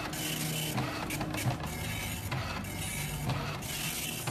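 Dot-matrix printer printing on continuous paper: the print head runs across in bursts of about half a second to a second, with short pauses between lines.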